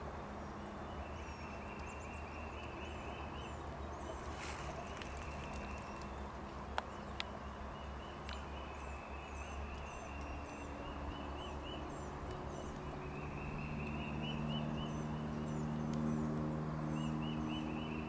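Repeated high trilling animal calls, each a second or two long, coming four times, with fainter high chirps above them. Under them runs a low steady hum that grows louder in the second half, with two sharp clicks near the middle.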